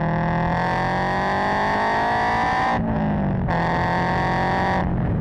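Loud exhaust note of a Scion FR-S's flat-four boxer engine, heard at the tailpipe through a Tomei unequal-length header, catless front pipe and Tomei 80 exhaust, as the car accelerates. The pitch rises steadily, drops at a gear change about three seconds in, climbs again, then cuts off near the end as the driver lifts.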